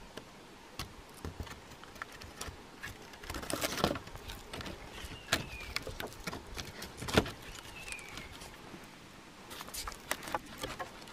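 Footsteps crunching and snapping through dry leaves and twigs, an irregular run of cracks with a sharper snap about 3.5 and 7 seconds in. Two short descending chirps sound midway and later.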